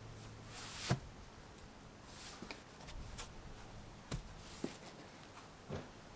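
A handful of scattered light knocks and clicks, the loudest a little under a second in, over a faint steady low hum.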